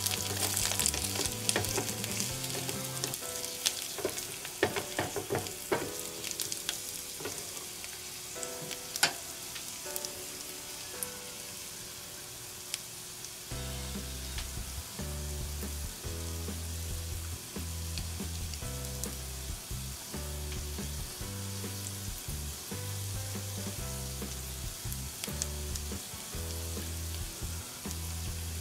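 Onions frying in butter in a miniature pan, a steady sizzle with light clicks of a utensil stirring through the first half. Soft low background music comes in about halfway.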